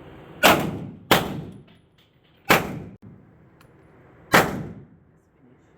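.45-calibre pistol fired four times, each shot a sharp report with a short ringing echo. The first two come in quick succession, then two more follow more slowly, about a second and a half to two seconds apart.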